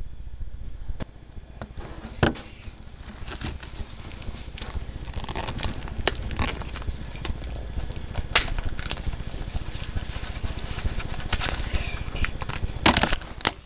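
Plastic shrink-wrap on a Blu-ray case crinkling and crackling as it is picked at and peeled off, in an irregular run of small crackles with a few sharper, louder ones, the loudest near the end.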